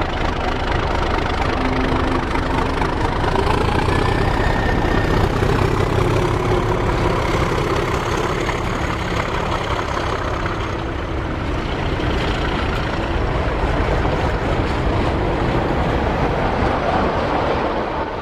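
A heavy engine idling steadily, with a strong low rumble.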